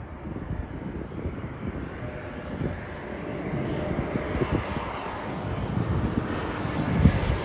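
Jet airliner's engines growing steadily louder as the plane draws near, with a faint steady whine coming in partway through, over an irregular low rumble and a sharp low thump near the end.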